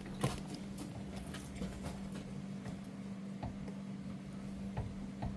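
A shop machine's motor running with a steady low hum, with scattered light clicks and taps of metal against metal as the work is set up.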